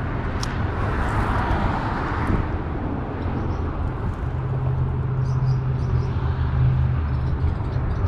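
Steady rumble of highway traffic, with a passing vehicle's hiss about a second in and a deeper drone coming up about halfway through.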